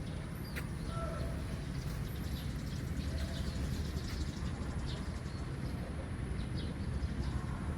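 Birds chirping, short high chirps scattered throughout, over a steady low background rumble.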